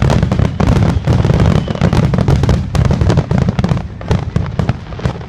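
Aerial fireworks shells bursting in a dense barrage: rapid overlapping bangs and crackle over a continuous deep rumble, easing slightly near the end.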